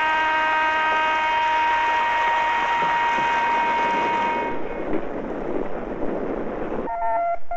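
Rushing, gushing noise of a sand-pump dredger's discharge spewing sand and water, under a steady horn-like tone that fades out about four and a half seconds in. Near the end the rush cuts off suddenly and a run of short beeping tones at changing pitches begins.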